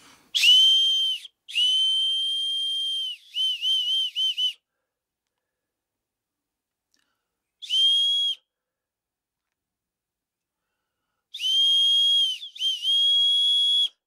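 Willow-bark whistle blown on one high, steady pitch in separate blasts: two long blasts, then a quick run of short toots. After a pause comes a short blast, and near the end two more long blasts with a brief flutter between them.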